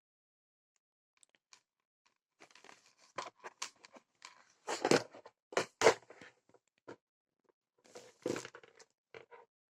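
Irregular handling noise: rustling, scraping and clicking of something being handled. It comes in uneven bunches, loudest twice around five and six seconds in, with another bunch a little past eight seconds.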